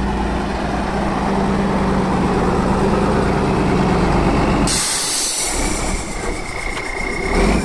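Tatra 815 trial truck's diesel engine running with a steady low drone. About five seconds in, a loud hiss of escaping compressed air starts suddenly, with a thin high whistle over it near the end.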